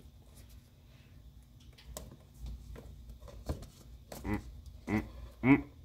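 Cardboard box being worked out of tight clear plastic packaging, with faint scraping and rustling, then three short grunts of effort from a man in the last two seconds.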